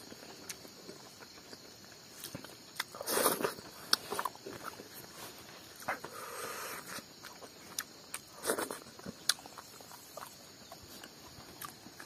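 Close eating sounds of someone eating rice by hand: chewing and mouth clicks, with fingers scraping and rustling on a banana leaf, several louder rustles spread through.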